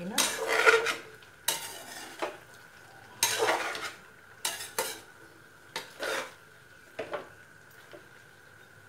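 A cooking spoon stirring and scraping chopped mixed vegetables, including bitter gourd, around a metal pan as they are dry stir-fried without water: a run of scrapes and knocks, the loudest in the first second, then thinning to occasional strokes. A faint steady high tone runs underneath.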